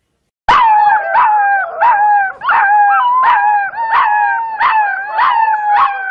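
A litter of puppies howling together: overlapping, wavering howls that start about half a second in, with new ones joining roughly every second.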